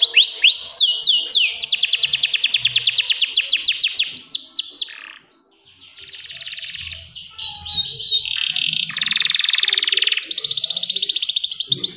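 Domestic canary singing: long fast trills of repeated notes at about ten a second, with a few downward-slurred whistles. The song breaks off briefly about five seconds in, then returns with a buzzy roll and more fast trills.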